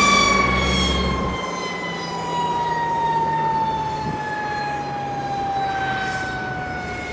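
Rolls-Royce Dart turboprop engines of a Hawker Siddeley HS748 winding down, their high-pitched whine falling slowly and steadily in pitch. A low rumble underneath drops away about a second and a half in.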